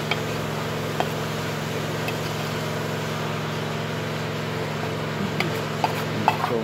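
Steady mechanical hum, with a few light clinks of a metal spoon against dishes while a mixture is stirred, more of them near the end.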